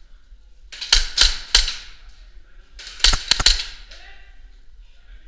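Airsoft pistol shots echoing in a bare corridor: three quick shots about a second in, then a faster string of about five around three seconds in. A short shout of "Hit!" follows, a player calling himself out as struck.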